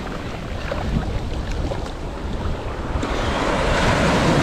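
Rough sea surf: waves breaking and washing around, with wind buffeting the microphone. The surge grows louder about three seconds in as a bigger wave comes through.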